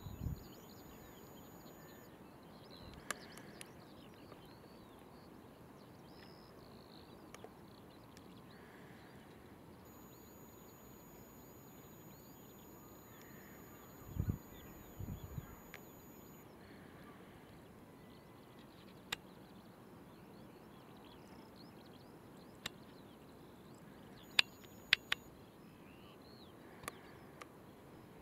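Faint steady background hiss with scattered sharp clicks, the loudest a quick cluster near the end, and a couple of low thumps about halfway through.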